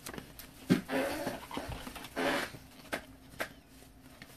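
Trading cards and plastic card holders being handled: a few sharp clicks and taps, the loudest about three-quarters of a second in, and two short scraping rustles about a second and a half apart.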